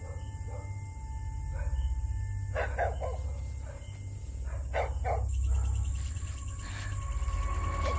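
A dog barking in short bursts, loudest about three seconds in and again about five seconds in, over a low steady drone. Higher sustained tones come in partway through.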